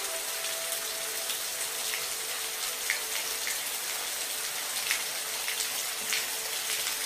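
Steady rain falling: a dense, even hiss with a few louder drops ticking through it.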